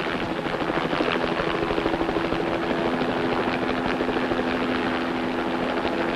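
Helicopter in flight: a rapid, even rotor chop over a steady engine hum.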